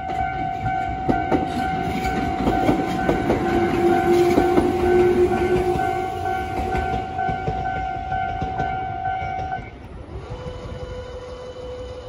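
Japanese level-crossing alarm sounding its standard repeating electronic warning tone while a Tobu commuter train's wheels clatter over the rail joints, loudest a few seconds in, then fading. The alarm cuts off about ten seconds in, and a lower steady hum follows as the crossing barriers rise.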